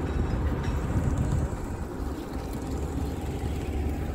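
Motorboat engine running steadily as the boat moves along the river, a constant low rumble.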